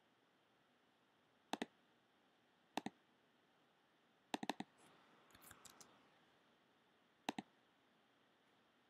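Sharp computer clicks, mostly in quick pairs and a second or more apart, with a run of three clicks a little past the middle. A brief soft rustle follows the run, all over near-silent room tone.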